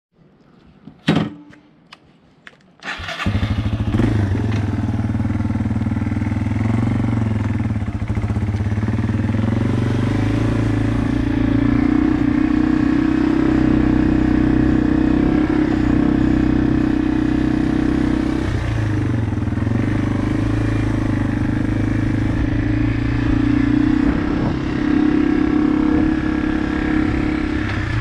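A few clicks and a knock, then about three seconds in the Yamaha TW200's single-cylinder four-stroke engine starts. It runs steadily as the bike is ridden off.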